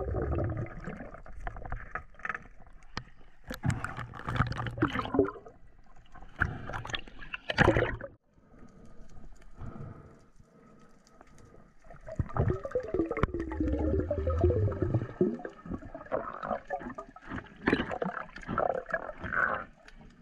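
Underwater gurgling and bubbling of water, heard through a camera submerged with a diver, with low rushing water noise. It comes in irregular waves, loudest about four, eight, thirteen to fifteen and eighteen to nineteen seconds in, and dies down for a few seconds around the tenth second.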